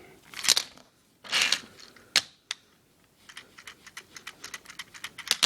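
Plastic parts of a Transformers Prime Deluxe Ratchet figure being handled and pushed together: a few scuffs and sharp clicks, then a run of small quick clicks as the pieces lock into vehicle mode.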